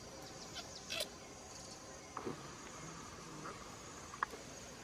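Steady high-pitched insect chorus, like crickets, with a few short chirps and clicks over it, the sharpest about four seconds in.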